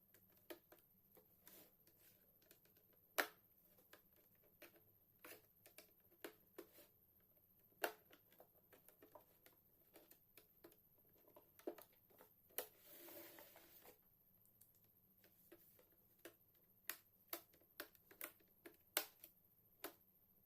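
Faint, irregular clicks and taps of hands handling a laptop's plastic case and small parts, with a short scraping rustle about two-thirds of the way through.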